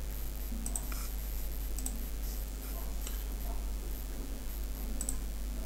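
Computer mouse buttons clicking a few times, short sharp clicks spaced a second or more apart, over a steady low hum.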